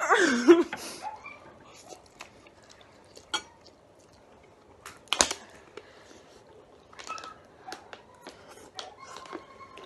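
Quiet eating noises from two people racing through bowls of spicy noodles: scattered small clicks and taps, with one sharper click about five seconds in. A short laugh at the very start.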